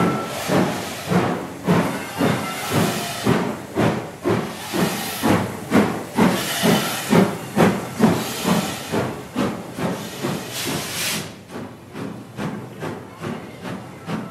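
2-6-2 tank steam locomotive starting away: evenly spaced exhaust chuffs, a little quicker by the end, under a loud hiss of steam that cuts off suddenly about eleven seconds in.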